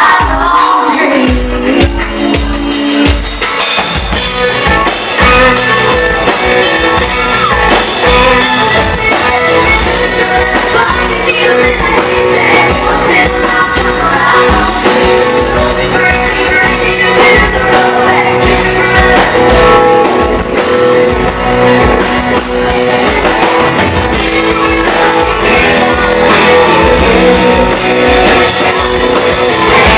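Live rock band playing loudly, with singing over a drum kit beat and guitar.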